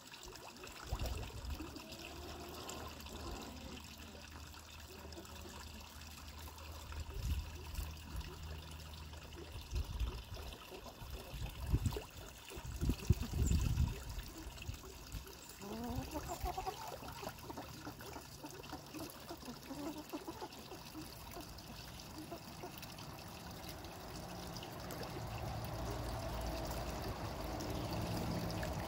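Steady trickle of water in a duck pond, with a few loud low thumps near the middle and some brief rising sounds soon after.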